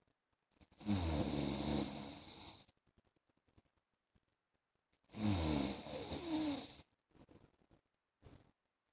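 A man snoring in his sleep: two loud snores about four seconds apart, each lasting about two seconds and opening with a low rattling tone, followed by a couple of soft breaths near the end.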